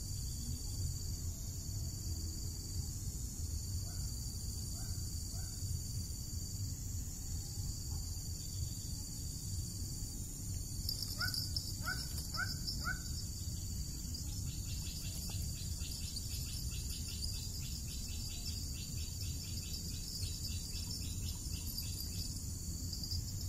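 A steady, high insect chorus of crickets or cicadas, over a low rumble. A bird gives a few faint short chirps about four seconds in, then four quick rising notes about twelve seconds in. From about fourteen seconds a rapid pulsing insect trill joins for several seconds.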